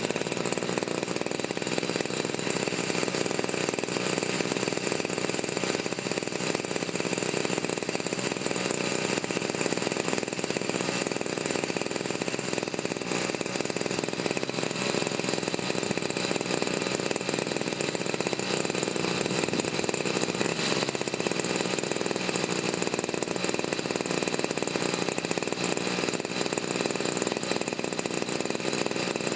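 Brush cutter's small engine running steadily at an even speed, starting abruptly.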